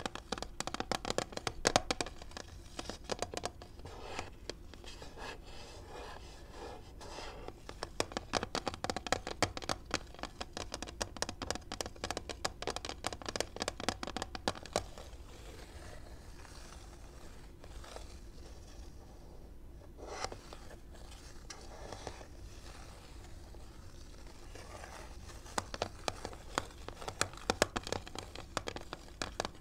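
Long fingernails tapping and scratching on a clear plastic blister pack holding a phone case, close to a clip-on microphone: quick clusters of sharp clicky taps with crinkly plastic scratching. About halfway through it eases off for several seconds, then the taps pick up again near the end.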